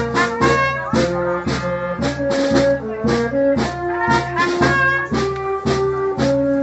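Band music: a march, with brass instruments playing the tune over a steady beat about twice a second.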